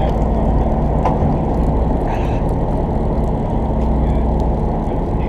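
Fishing charter boat's engine running steadily, a low, even hum with no change in pace.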